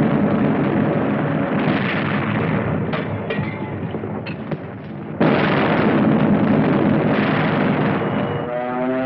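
Battle sounds of explosions and gunfire on an old film soundtrack: a dense, continuous din, with a run of sharp cracks between about three and five seconds in, then a sudden loud blast about five seconds in that keeps the din loud.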